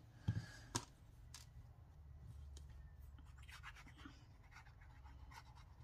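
Quiet handling of paper scraps and a plastic glue bottle: a few light taps, the clearest just under a second in, and faint paper rustling over a low room hum.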